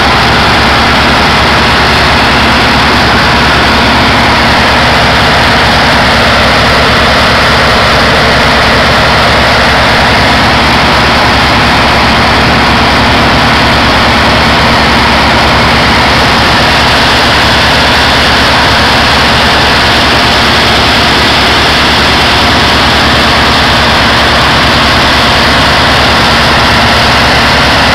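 Heavy marine diesel engine running loud and steady, a deep even drone with no change in pitch.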